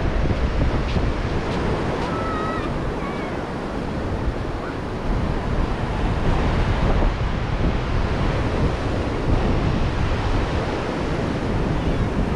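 Ocean surf breaking and washing up the beach, with wind buffeting the microphone into a steady low rumble.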